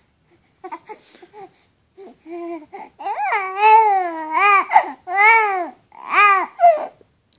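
An 8-week-old baby cooing: a run of high, pitched coos that rise and fall, soft and short at first, then louder and drawn out from about three seconds in.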